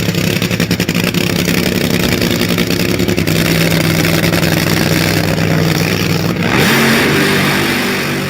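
A vehicle engine running steadily, then revving up with a rising pitch about six and a half seconds in.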